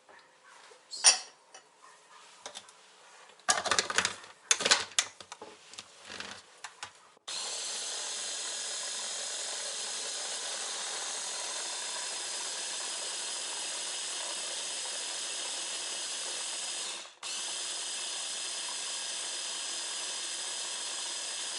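A few knocks and clatters as banana and egg go into a blender jar. Then the blender's motor starts and runs steadily, puréeing the pancake batter, with a brief stop near the end before it starts again.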